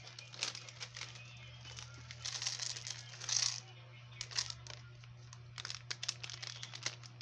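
Packaging crinkling and rustling as it is handled, with scattered light clicks and taps and a brief hissing rush about three seconds in, over a steady low hum.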